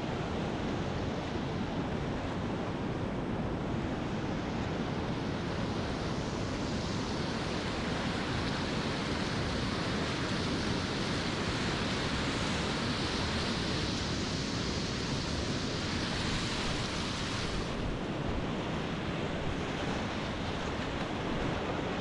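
Whitewater rapids rushing in a steady roar of moving water, with wind buffeting the microphone. A brighter hiss builds about a quarter of the way in and cuts off sharply near the end.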